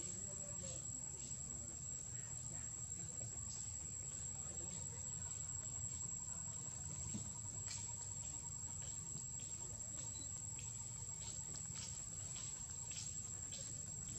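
Steady high-pitched insect shrilling, one unbroken tone, over a low steady rumble of background noise, with scattered faint short ticks, more often in the second half.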